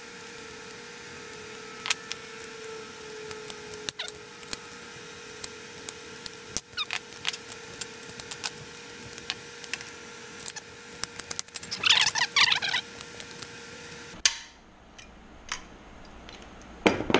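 Small metal clicks and clinks of hand tools working an aluminium plate: clecos set with cleco pliers, then a hand (pop) rivet tool being worked to set rivets. A loud burst of squeaking comes about twelve seconds in.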